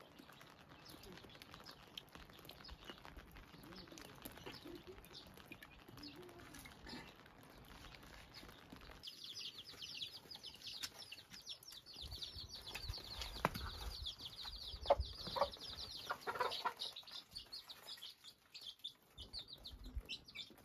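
Domestic chicks peeping, many short high chirps in quick succession, starting about nine seconds in, with a few light knocks in the middle.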